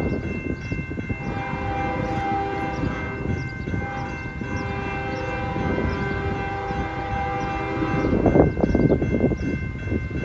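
Diesel locomotive horn of an approaching CN freight train, not yet in sight, sounding long blasts for a grade crossing over the steady ringing of crossing warning bells. About eight seconds in, a louder rushing, rumbling noise takes over.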